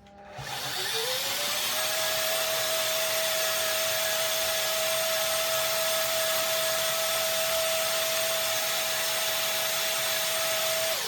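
NutriBullet blender puréeing hot vegetable soup: the motor spins up with a rising whine over the first second or so, runs loud and steady at full speed, then stops near the end.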